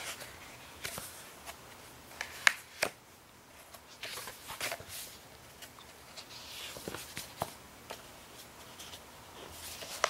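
Paper rustling and scattered soft clicks as a paperback picture book is handled, opened and its pages turned.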